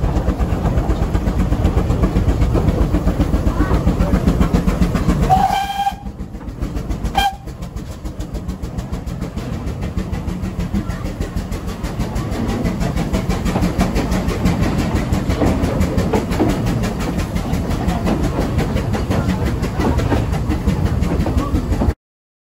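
Narrow-gauge steam train running uphill, heard from an open carriage: a steady rumble and clatter of the carriage and the working locomotives. About five and a half seconds in a steam whistle sounds, a short note, followed by a brief second toot about a second and a half later; the sound cuts off suddenly near the end.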